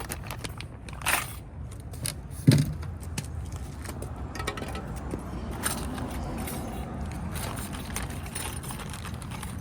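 Small metal brake hardware (springs and bushings from a brake shoe kit) clinking and rattling as it is handled, with a few sharper clicks and one louder thump about two and a half seconds in, over a steady low hum.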